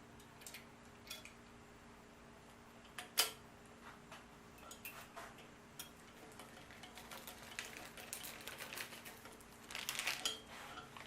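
Light metallic clicks and taps of small parts being handled while nuts are threaded by hand onto an engine, with one sharper click about three seconds in and a quicker run of taps near the end, over a low steady hum.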